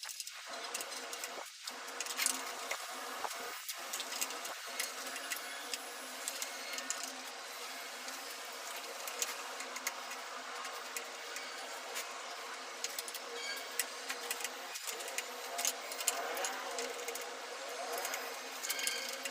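An elevator machine running with a steady mechanical whir and frequent small clicks.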